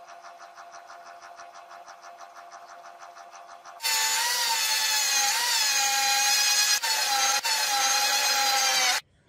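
A small lathe running with a steady, evenly pulsing hum as its cutting tool peels curls off a red workpiece. About four seconds in, it gives way suddenly to a handheld rotary tool's loud high-pitched whine, its grinding stone working the piece, with the pitch wavering under load until it cuts off abruptly near the end.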